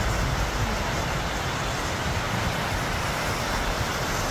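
Swollen river in flood rushing past: a steady, dense roar of fast floodwater with a low rumble underneath.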